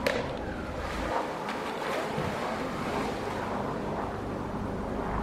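A polar bear diving into a pool: a sharp splash at the very start, then the water churning and washing where it has gone under.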